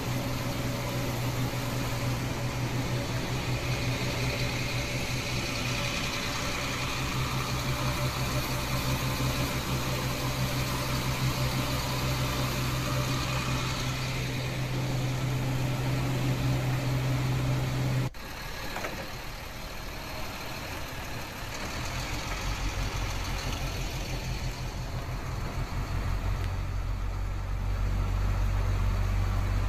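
An engine runs steadily with a strong low hum and fast even pulsing. About 18 seconds in it cuts abruptly to a quieter engine sound, which grows louder again near the end.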